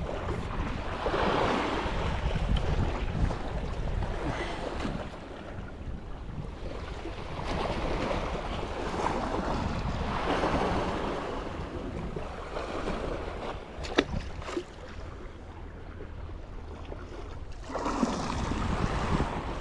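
Wind on the microphone over sea waves lapping, the noise rising and falling every few seconds, with one sharp click about fourteen seconds in.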